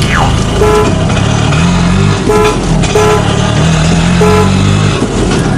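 Motor traffic: an engine running with a steady drone that rises and falls in pitch, and a horn tooting briefly about four times.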